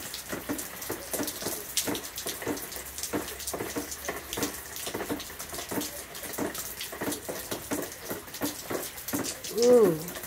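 Steady rain falling onto a wet concrete patio and muddy ground, a dense irregular patter of drops splashing. A voice says "ooh" near the end.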